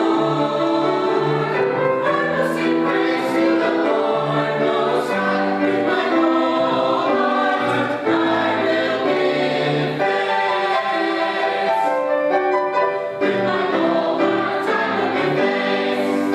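Mixed-voice church choir singing together in harmony, with piano accompaniment.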